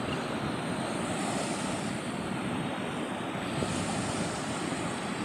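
Ocean surf rushing steadily, with a deep rumble like wind on the microphone.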